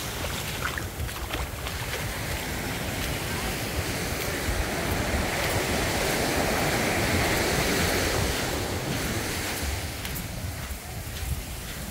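Small waves breaking and washing up a sandy beach, the surf swelling to a peak in the middle and easing off near the end. Wind buffets the microphone underneath.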